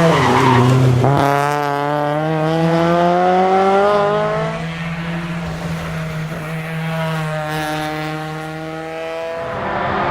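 Honda Integra Type R's four-cylinder engine under hard acceleration, the revs climbing steadily for a few seconds, then dropping about four and a half seconds in and pulling again at steadier revs, with another change near the end.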